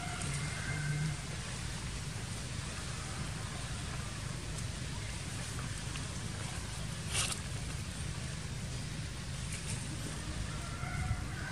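Steady outdoor background noise, an even hiss over a low rumble, with one sharp click about seven seconds in and a few faint short high tones near the start and again near the end.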